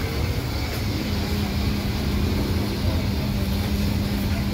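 Busy street-market ambience: a steady low rumble of traffic and engines, with a steady motor hum that comes in about a second in.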